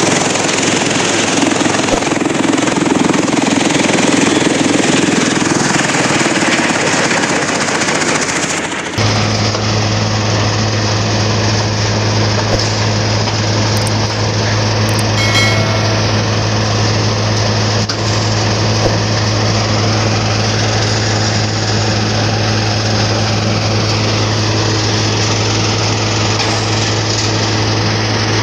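Mahindra 475 tractor's diesel engine driving a thresher that is chopping straw into chaff: loud, steady machine noise. About nine seconds in the sound changes abruptly to a steadier running with a strong low hum.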